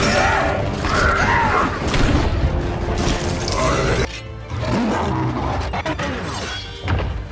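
Loud music mixed with crashing sound effects, dropping for a moment about four seconds in.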